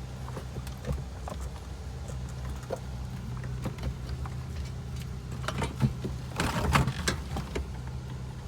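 Scattered light clicks, knocks and rustling of A/C parts being handled and fitted into the car's dashboard, busiest about six to seven seconds in, over a steady low hum.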